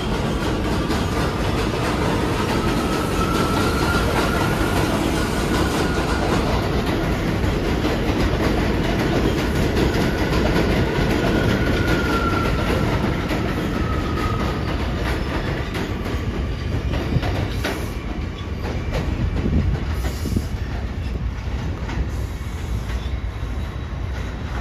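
Subway train pulling out of an elevated station: a steady rumble with wheels clattering over the rail joints. A thin motor whine rises and falls in pitch twice in the first half, then the sound eases off somewhat.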